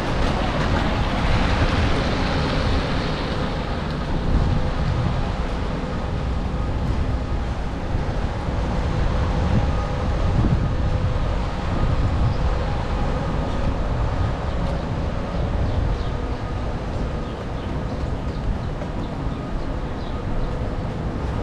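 Steady low rumble of city traffic with wind buffeting the microphone. A louder hiss at the start fades away after about three seconds.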